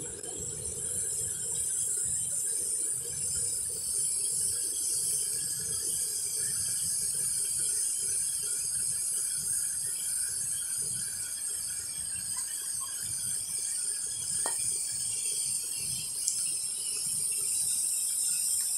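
Steady high-pitched buzzing of an insect chorus, with wind rumbling on the microphone. A single short rising chirp comes about three-quarters of the way through.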